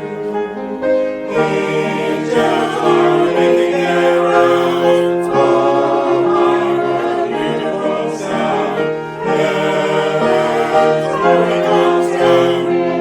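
Choir singing sustained chords in several parts, the phrases breaking and starting again a few times.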